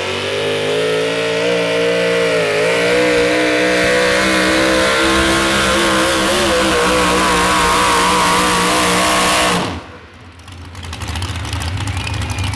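Modified 4x4 pulling truck's engine at full throttle through open headers, dragging a weight-transfer sled. Its pitch wavers and climbs near the end. About ten seconds in the engine cuts off suddenly as the driver lets off at the end of the pull, then settles to a low idle rumble.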